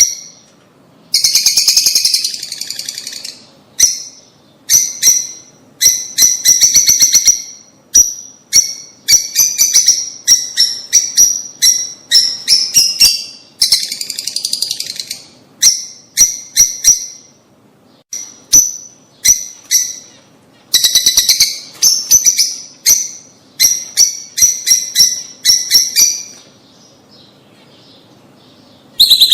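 Lovebirds calling in loud bursts of rapid, high-pitched chirps, each burst a second or two long with short gaps between. The calling stops about 26 seconds in.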